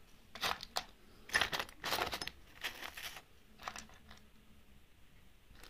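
Loose screws, bolts and nuts clinking and rattling as fingers rummage through a drawer full of small hardware. A string of short, irregular clinks, thinning out near the end.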